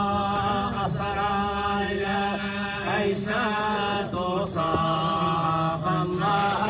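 Arabic devotional chant in praise of the Prophet (madih): voices singing long, slowly bending held notes over a steady low held note.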